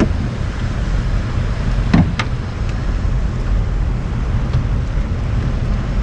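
Steady low rumble of a small fishing boat's engine, with wind buffeting the microphone. A short knock comes about two seconds in.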